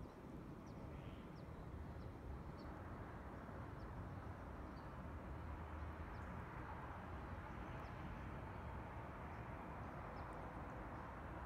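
Quiet outdoor ambience: a steady low rumble and hiss, with faint short high chirps repeating about every half second to a second.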